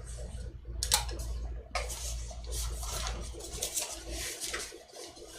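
A Chinese painting brush working ink and colour: soft swishing strokes on rice paper and light clinks of the brush in a ceramic paint dish, with one sharp clink about a second in.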